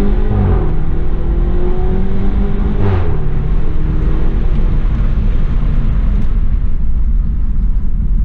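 BMW 320i's B48 turbocharged four-cylinder engine accelerating, its note climbing. About three seconds in the pitch drops sharply, as at an upshift or lift-off, and the rest is a steady low engine drone with road rumble.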